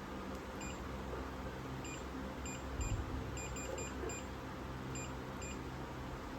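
A hydrafacial machine's control panel giving about a dozen short electronic beeps at irregular intervals, as if its buttons are being pressed. The beeps sound over the steady hum of the running machine.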